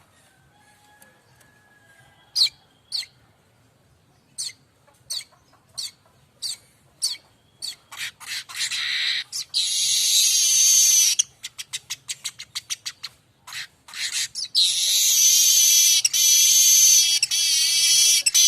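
Streaked weaver singing: a run of sharp ticks that come faster and faster, breaking into a long, harsh buzzing wheeze about eight seconds in, then a quick rattle of clicks and a second long buzzing wheeze near the end.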